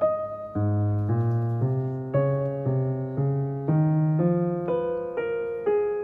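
Background piano music: a slow run of single notes, about two a second, over a low held bass.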